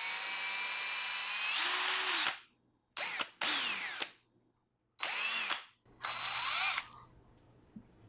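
Cordless drill spinning a small metal mechanical pencil clamped in its chuck. The motor whines for about two and a half seconds, rising in pitch as the trigger is squeezed harder. It then runs in several short trigger bursts, each winding down in pitch as it is released.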